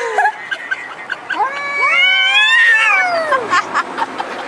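A cat yowling: one long drawn-out caterwaul that starts about a second in, rises in pitch and then falls away, after the tail end of a shorter call at the very start.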